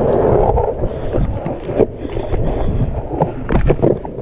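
Longboard's 65 mm urethane wheels (Seismic Encore, 79a) rolling on rough asphalt with a steady rolling noise and wind on the microphone. Sharp knocks of the board come through, one about two seconds in and a quick cluster near the end as the board is turned under the feet.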